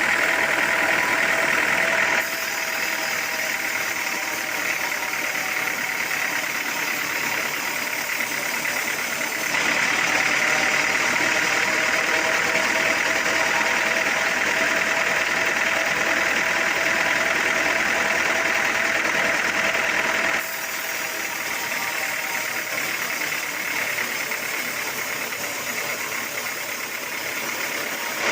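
Sawmill machinery running steadily, its level jumping abruptly three times as if between cuts of the same work.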